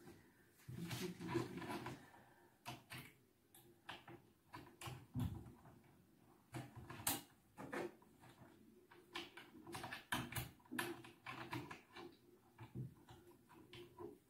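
Clothes hangers clicking and scraping on a wardrobe rail, with fabric rustling, as garments are hung up: many light irregular clicks and a longer rustle about a second in.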